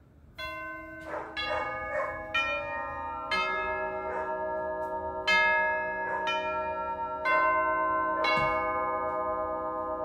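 Rittenhouse 631/632 four-tube brass doorbell chime playing its sequence: the tubes are struck one after another, about eight strikes, each note ringing on and overlapping the next.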